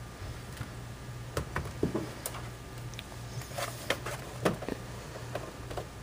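A handful of light knocks and clicks from a laptop's plastic case as it is turned over by hand, scattered through the middle few seconds, over a low steady hum.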